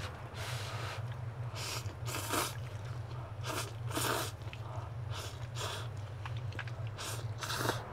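People slurping instant cup noodles with chopsticks: about nine short, noisy slurps, often two in quick succession, over a steady low hum.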